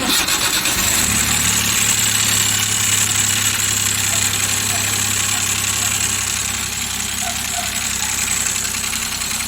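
Suzuki K6A three-cylinder engine starting and idling with a fast tapping knock from the top end. Oil is not reaching the valve train after a fresh overhaul.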